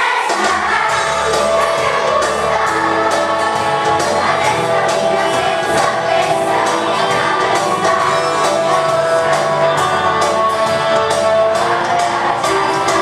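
Children's choir singing to an upbeat accompaniment with a steady beat.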